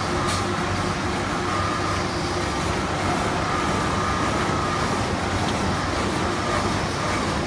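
Automatic band-saw toilet paper roll cutting machine running: a steady mechanical drone with a faint high whine that comes and goes, as rolls are fed along the belt conveyor.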